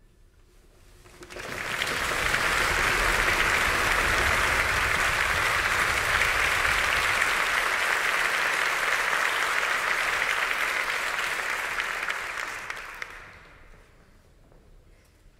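Theatre audience applauding, building up about a second in, holding steady, then dying away near the end.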